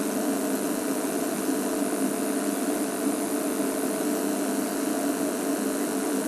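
Game-drive vehicle's engine idling with a steady, unchanging hum.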